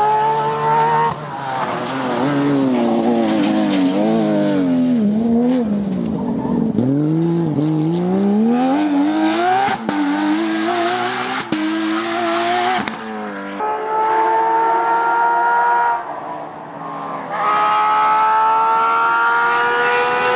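Rally car engine working through a corner: the revs swing up and down several times as the driver brakes and blips, then the car accelerates hard, climbing through about three quick upshifts, each marked by a sudden drop in pitch, and holds high revs to the end.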